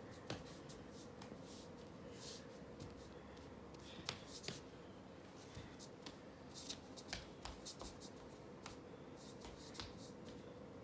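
Faint, irregular light pats and clicks of a toddler's bare feet on a wooden floor, over a steady low hum.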